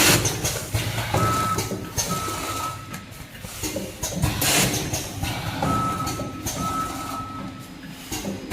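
Vertical form-fill-seal packing machine with measuring-cup doser running: continuous mechanical clatter with a loud hissing burst about every four and a half seconds. Two pairs of steady electronic beeps sound, the first pair about a second in and the second pair near six seconds.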